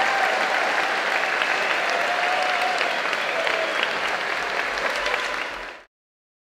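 Audience applauding, with a few voices calling out over the clapping. The sound fades and then cuts off near the end.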